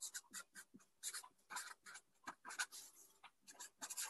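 Felt-tip marker writing block capitals on paper: a faint, quick, uneven run of short strokes.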